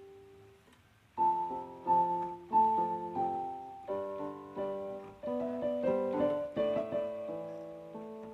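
Piano music: a quiet held note at first, then from about a second in a melody of struck notes that each fade away.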